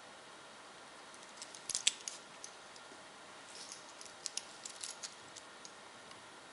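Steel link bracelets of Invicta Pro Diver chronograph watches clinking as they are handled: light metallic clicks and jingles in two short clusters, about a second and a half in and again around four to five seconds in.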